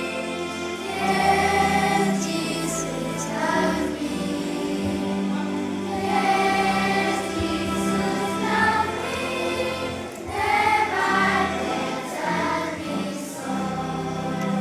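School choir singing, holding long notes one after another.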